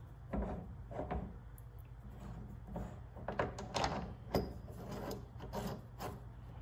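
Irregular clinks and short scrapes of metal parts being handled, as a spacer and nut on a quick-change tool post are taken off and refitted.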